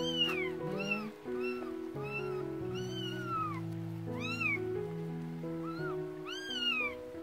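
Very young kitten meowing about eight times, high cries that rise and fall, two of them drawn out, while its belly and bottom are rubbed with a tissue to stimulate it to pee and poop. Soft background music with sustained notes runs underneath.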